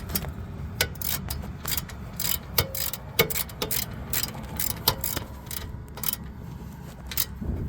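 Hand ratchet wrench clicking in short, irregular strokes as it tightens an 18 mm brake caliper bolt.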